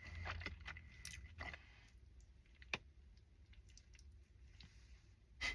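Quiet eating sounds: chewing, with scattered small clicks, and one sharper click a little under three seconds in.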